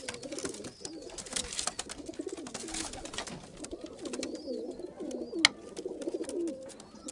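Several Rampuri pigeons cooing over and over in low rolling calls, with rustling and scuffling among them in the first few seconds. A single sharp knock comes about five and a half seconds in.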